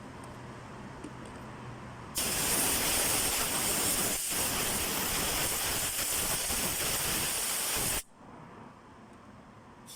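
A pressurised spray hissing steadily and loudly. It starts abruptly about two seconds in, falters briefly once, and cuts off sharply about six seconds later.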